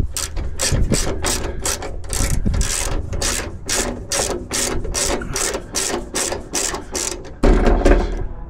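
Hand ratchet clicking in a steady rhythm, about three clicks a second, as a fastener is turned on a Jeep door. Near the end a louder, duller noise breaks in briefly.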